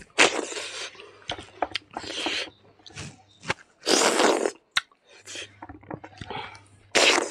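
Close-miked eating by hand: wet chewing and mouth-smacking in short irregular bursts, with a longer, louder sucking noise about four seconds in as food is pushed into the mouth with the fingers.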